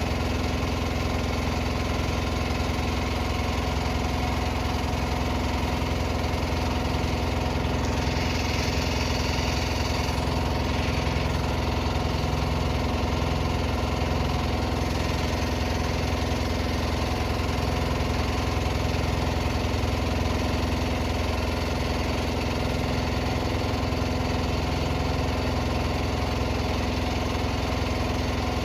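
Small boat engine running steadily at an even speed, with a brief hiss of spray or wind about eight seconds in.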